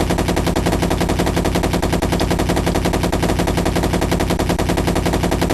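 Machine-gun sound effect: one long unbroken burst of rapid, evenly spaced automatic fire.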